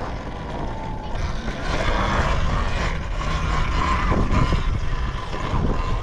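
Talaria Sting electric dirt bike riding under throttle: a steady electric-motor whine over wind rushing on the camera microphone, the whine strongest about two-thirds of the way through as the front wheel lifts into a wheelie.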